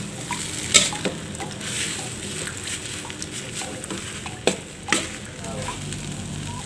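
Noodles being stir-fried in a wok: a steady sizzle of hot oil, with the metal spatula scraping and knocking against the pan a few times as it tosses the noodles through the seasoning.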